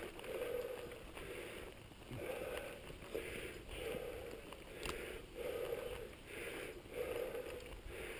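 Mountain bike rolling along a dirt singletrack, its tyre and wind noise on the rider's camera rising and falling in a rhythm about once a second, with one sharp click about five seconds in.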